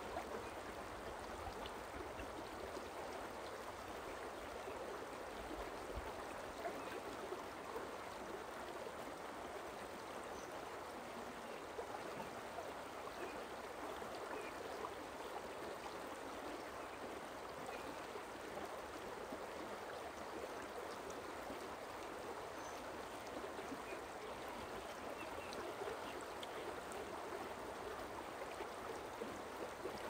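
Forest stream flowing, a steady, unbroken rush of running water.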